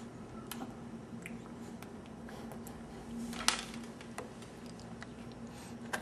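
A baby eating oatmeal from a spoon: small wet mouth sounds and light clicks, with one sharp click about halfway through.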